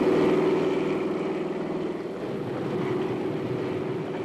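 Steady aircraft engine drone, a held hum with lower steady tones underneath, dipping slightly in level about two seconds in.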